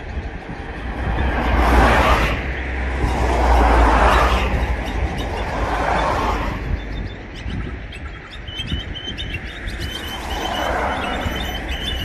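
Several vehicles passing one after another, each a swelling and fading whoosh with a deep rumble under the first few, while a perched flock of small birds chirps; the chirps come through more clearly in the second half, between the passes.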